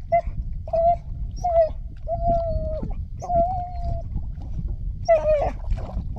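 Spanish water dog whining in a series of about six high, steady whines, some short and two drawn out, the loudest about five seconds in, over a low rumble.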